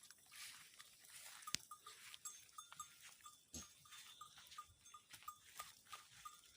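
Near silence in a grazing pasture: faint scattered ticks and light rustles, with one sharp click about a second and a half in.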